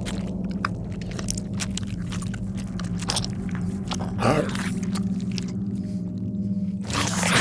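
Wet crunching and crackling, irregular and close, like chewing or biting, over a steady low hum. A louder, rougher noise comes in near the end.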